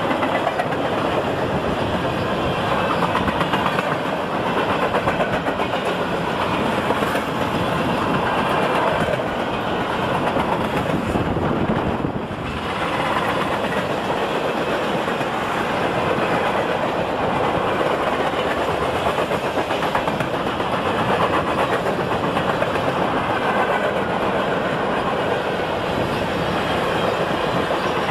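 Double-stack intermodal freight train rolling past at steady speed, its railcar wheels clattering over the rail.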